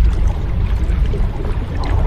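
Sea waves washing onto a shore: a steady low rumble of surf with a brief splash of breaking water near the end.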